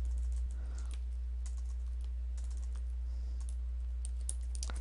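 Typing on a computer keyboard: quiet, irregular key clicks in short runs, over a steady low hum.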